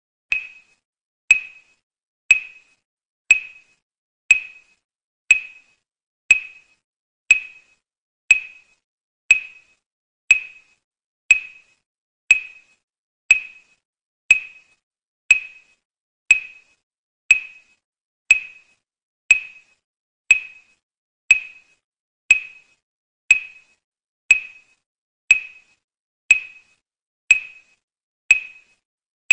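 A short, bright electronic ping repeating steadily about once a second. Each one is a sharp click with a quick ringing decay, a pacing cue for an eye-movement exercise.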